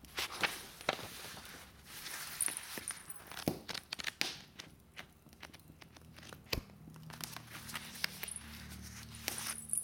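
Wood fire crackling in an open fireplace: irregular sharp pops and snaps with a softer hiss between them.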